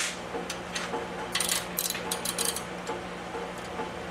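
Socket ratchet clicking in short strokes, with a denser run of quick clicks about a second and a half in, as it turns an installer tool driving a thread insert down into a counterbored hole in a cast-iron engine block. A steady low hum runs underneath.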